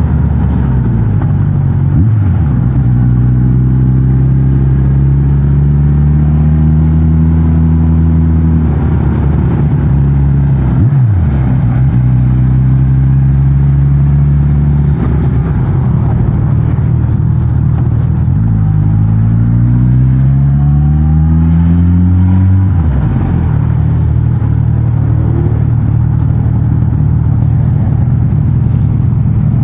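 Suzuki GSX-S 1000 GT's inline-four engine through its stock exhaust, pulling up in pitch in three long climbs with sharp drops in revs between them, then running at steady revs near the end.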